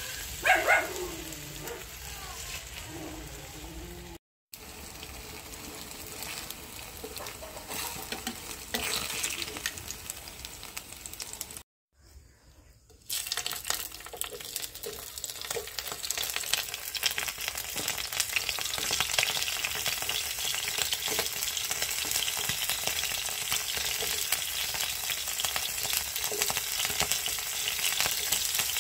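Oil sizzling and crackling in a frying pan as beaten egg cooks over sliced onions and then small whole fish fry. The sizzle gets louder and more crackly about halfway through, after a brief quiet gap.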